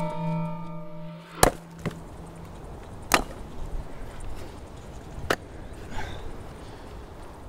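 A droning musical tone fades out, then three sharp impacts land about two seconds apart, with a couple of fainter knocks between them.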